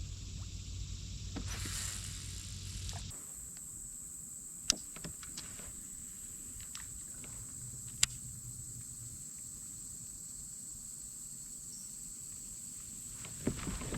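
Quiet outdoor ambience on the water: a steady high-pitched drone with a few sharp clicks and knocks, the two loudest about five and eight seconds in. A low hum underneath stops abruptly about three seconds in.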